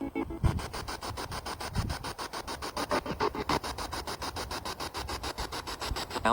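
Spirit box sweeping through radio frequencies: a rasping static that chops on and off in an even rhythm, about seven times a second.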